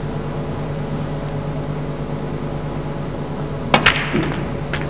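Snooker balls clicking: a sharp click of cue on cue ball and ball on ball about four seconds in, then a lighter click just under a second later, as a red is potted. Before that there is only a quiet, steady arena hum.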